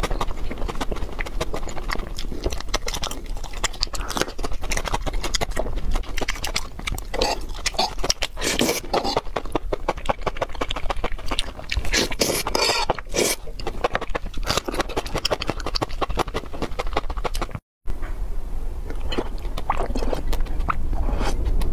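Close-miked eating sounds: wet chewing and slurping of enoki mushrooms and crab sticks in chili sauce, with many small smacking clicks. The sound cuts out for a moment near the end, then chewing and sipping go on.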